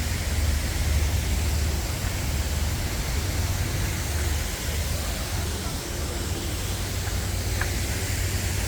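Steady rush of splashing fountain water, with a strong low rumble underneath.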